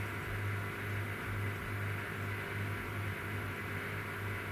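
Steady low electrical hum that swells and dips slightly, over a faint even hiss: workshop room tone with the machine idle.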